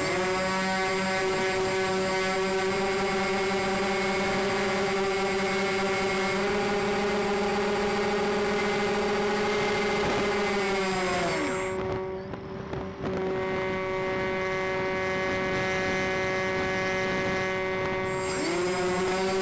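Onboard sound of a radio-controlled model C-124 Globemaster's motors and propellers running at a steady high-pitched drone. About eleven seconds in the pitch falls away as the throttle is eased, goes quieter for a second or so, then comes back to a steady drone. It dips and climbs again near the end.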